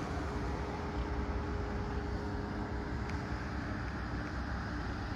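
Steady low outdoor rumble of wind and distant engine noise, with a faint steady hum that fades out about three seconds in.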